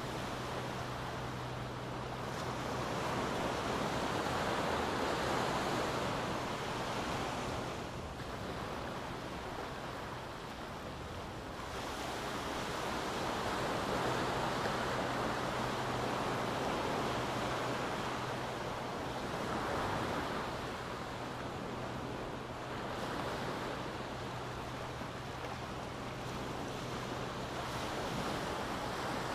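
Small ocean waves breaking and washing up a sandy beach, the surf noise swelling and easing every several seconds.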